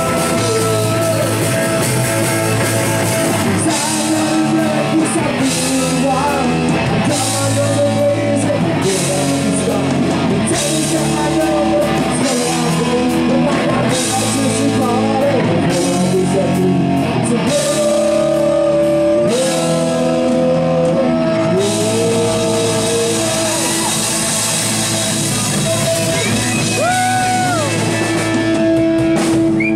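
Live punk rock band playing loudly: distorted Gibson Les Paul electric guitar, Fender Precision bass and a drum kit with crashing cymbals, with a man singing.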